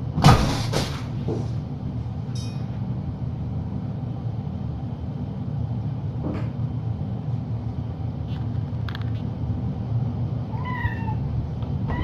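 Cat meowing once near the end, a short call falling slightly in pitch. Just after the start there is a loud knock or clatter, the loudest sound here, over a steady low hum.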